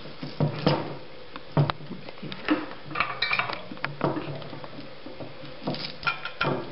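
Small metal clicks and rattles as the crocodile clips and swivel arms of a helping-hands soldering stand are handled and adjusted to grip a wire, in scattered, irregular taps.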